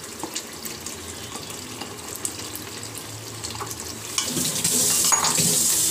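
Soaked chana dal scraped from a glass bowl with a metal spoon into a pressure cooker pan of fried masala, with light clinks. About four seconds in, the dal and its liquid are tipped into the hot pan, a louder splashing pour.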